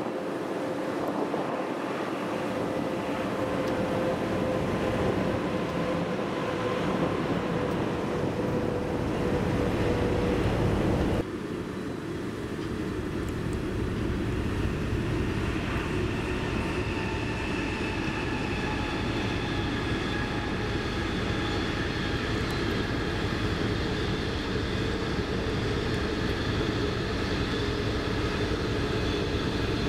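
Passenger train coaches rolling past on the track: a steady rumble of wheels on rail. The sound changes abruptly about eleven seconds in, and faint high steady tones join the rumble in the second half.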